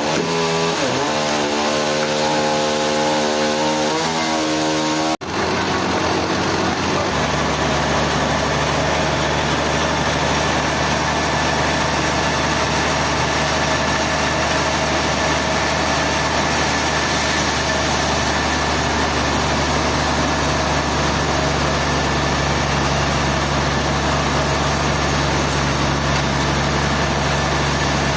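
Sawmill machinery running: an engine that changes pitch for the first few seconds, then a brief break about five seconds in, after which the machine runs on steadily.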